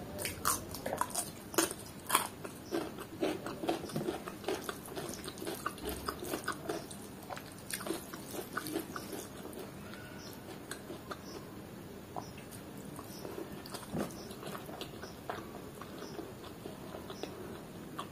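Close-up chewing: crisp crunches while biting and chewing a raw cucumber slice through roughly the first half, then softer, quieter chewing of rice and curry, with one louder click near 14 seconds in.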